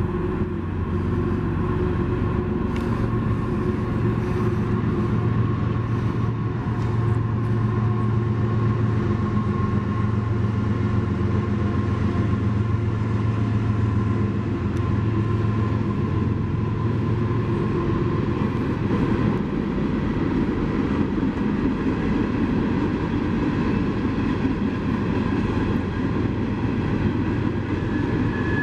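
Diesel locomotives on a coal train running, a steady low drone with several held tones above it.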